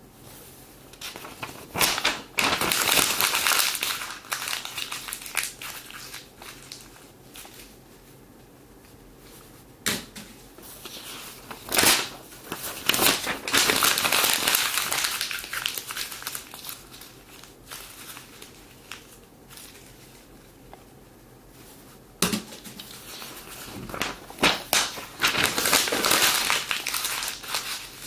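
Paper being crumpled into balls by hand, in three bouts a few seconds each, full of sharp crackles.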